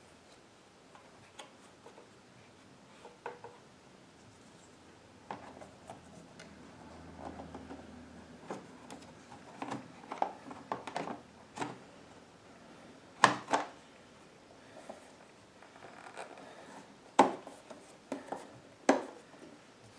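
Hands refitting parts on a small inverter generator while it is switched off, as the air filter goes back in: scattered clicks, taps and rubbing, with sharp knocks about 13, 17 and 19 seconds in.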